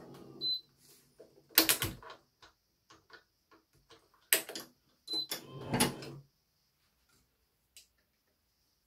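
Hand work at a badminton racket stringing machine: a string of sharp clacks and clicks with some rustling, the three loudest about one and a half, four and a half and six seconds in.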